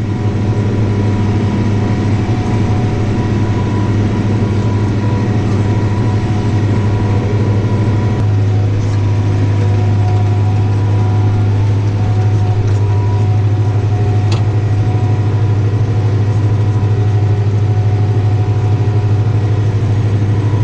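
Tractor engine running steadily while mowing with a front-mounted disc mower: a low even drone with faint steady whines above it, its tone shifting slightly about eight seconds in.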